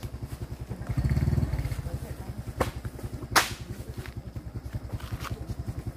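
A small engine idling with an even putter, revving up briefly about a second in. A sharp crack stands out about three and a half seconds in.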